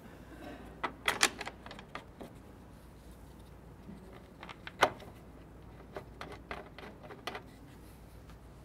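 Scattered plastic clicks and knocks from hands threading a mushroom knob and handling a soft-top door rail: a quick cluster about a second in, one sharp loud click near the middle, and a few lighter ones after it.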